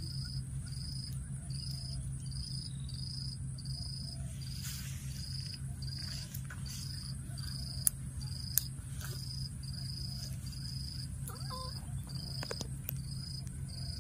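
Insects chirping in a steady rhythm, about one and a half high chirps a second, over a constant high insect drone and a steady low hum. Two sharp clicks come a little past the middle.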